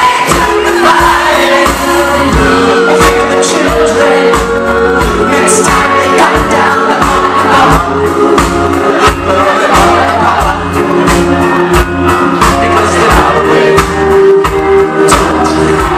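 A man singing a rock-musical song into a handheld microphone over a loud live band with bass and drums.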